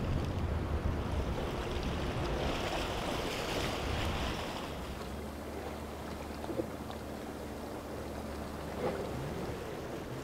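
Waterfront ambience: wind on the microphone and surf, with the low steady hum of boat engines.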